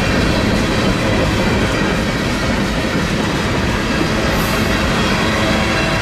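Freight train of tank cars and covered hoppers rolling past: a steady rumble and rattle of steel wheels on the rails.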